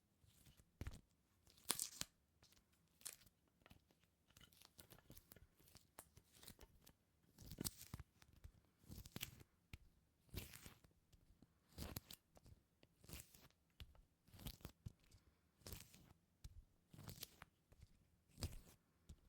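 Close-miked ASMR sticky sounds: a sticky surface pressed and pulled apart over and over, each peel a short crackle, about once every second or so, with faint ticks in between.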